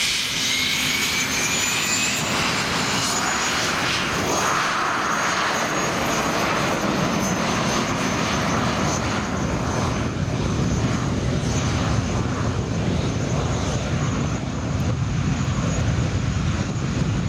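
English Electric Lightning's twin Rolls-Royce Avon turbojets running as the jet taxis, with a high whine that rises in pitch over the first few seconds. It gives way to a steady rushing jet noise, and a deeper rumble builds in the second half.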